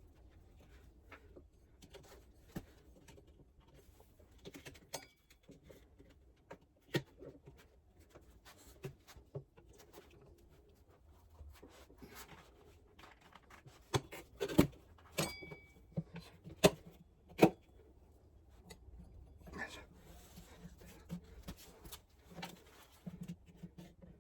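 Scattered clicks and knocks of hand tools working on a motorcycle wheel and tyre. About two-thirds of the way through comes a run of sharp, louder knocks, one with a short metallic ring.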